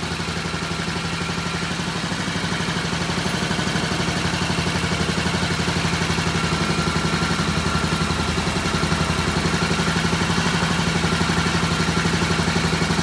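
Restored B50 MX single-cylinder four-stroke motorcycle engine idling steadily through a short stubby muffler, running smoothly. It grows a little louder a few seconds in.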